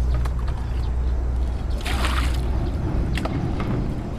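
Water sloshing and splashing in a large plastic basin as food is washed by hand, with one short splash about two seconds in, over a steady low rumble.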